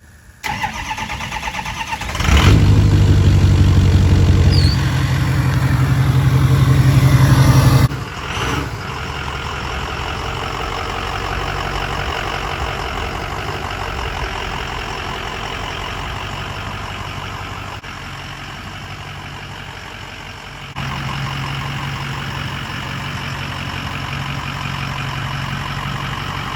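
Diesel pickup truck engine revving loudly for several seconds, then running on more steadily.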